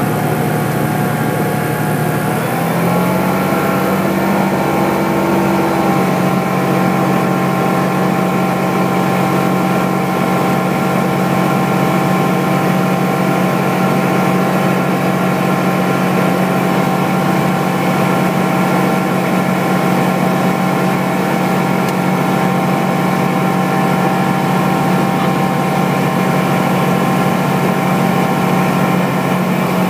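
Engine and propeller of a small single-engine plane droning steadily, heard inside the cockpit. The pitch rises slightly about two to three seconds in, then holds steady.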